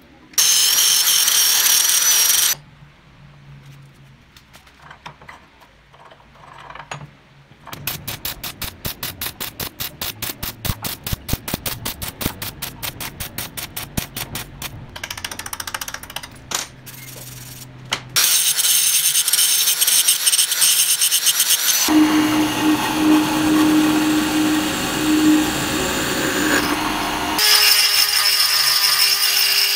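Stick welding arc crackling and sputtering in stretches, at times in a fast, even patter. Over the last several seconds a handheld rotary tool with a grinding stone runs at a steady whine, grinding inside a metal pipe.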